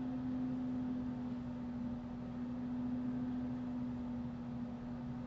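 A steady low hum on one pitch over faint background hiss, with no change in it.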